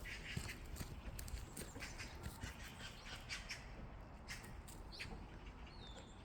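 Birds chirping outdoors, with one falling call near the end, over many short, crisp clicks and a low rumble.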